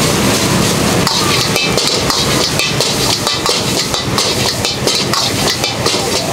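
Wok stir-frying of fried rice over a high-flame gas burner: the burner's steady roar and the rice sizzling, with a metal ladle and spatula repeatedly scraping and clanking against the steel wok.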